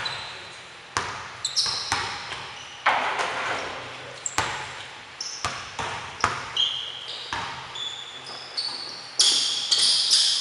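Basketball bouncing on a hardwood gym floor, each thud echoing in the large hall, with sneakers squeaking on the boards in short high squeals that come thick and fast near the end.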